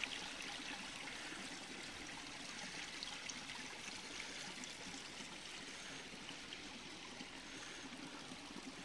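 Faint, steady rush of running water, with no breaks or distinct strokes.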